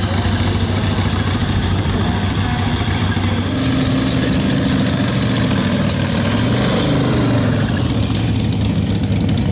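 Motorcycle V-twin engines idling together. A little over three seconds in the sound grows louder, and around six to seven seconds in one engine's note falls away as it comes off a rev.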